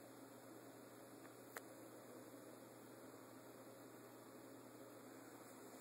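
Near silence: room tone with a faint steady hum and hiss, and one faint click about a second and a half in.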